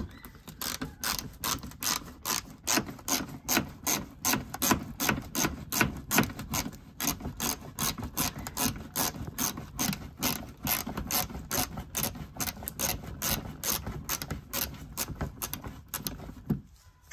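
Quarter-inch drive ratchet fitted with a Phillips bit clicking steadily, about four clicks a second, as it backs out a screw; the clicking stops near the end.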